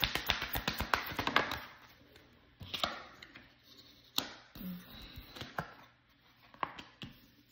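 Tarot cards being shuffled by hand: a rapid run of card clicks that stops about one and a half seconds in, followed by a few separate taps.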